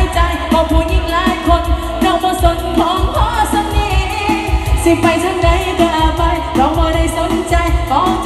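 A woman sings a Thai luk thung song into a microphone over backing music with a steady drum beat, all played loud through stage PA speakers.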